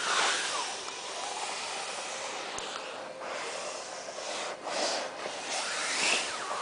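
Handling noise: hands or clothing rubbing and rustling against the recording device's microphone, with a few louder swishes, the loudest right at the start and about six seconds in, over a steady hiss.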